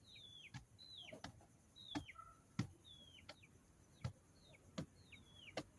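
A bird peeping over and over, short high calls that each fall in pitch, more than one a second, with several faint sharp knocks in between.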